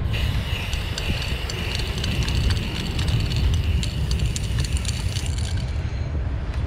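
Aerosol spray-paint can spraying in a steady hiss, stopping about five and a half seconds in, over a steady low rumble.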